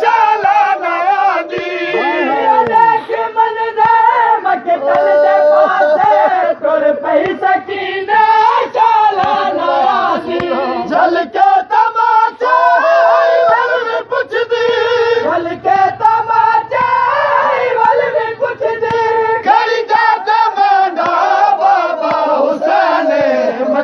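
A group of voices singing a Punjabi noha, a Shia mourning lament, in a wavering chant-like melody.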